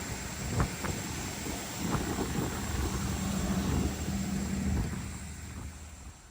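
Boeing 747-400 cockpit noise while taxiing: a steady hiss of air and engine hum with a few short clicks about half a second in and near two seconds. It swells a little in the middle and then fades away at the end.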